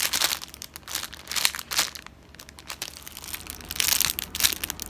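Clear plastic packaging crinkling as a bagged squishy toy is handled and pressed through the bag: scattered crinkles, a short lull about two seconds in, then denser crinkling near the end.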